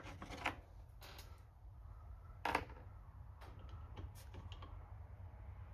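Scattered light clicks and taps of small carburetor parts being handled and fitted together during reassembly, the loudest about two and a half seconds in, over a low steady hum.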